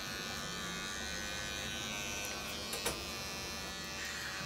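Small cordless pet clipper buzzing steadily as it trims the fur between a cat's paw pads, with one brief click about three seconds in.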